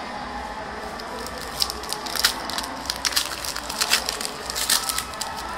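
Foil trading-card pack wrapper crinkling and crackling in a run of sharp bursts as it is handled and torn open by hand.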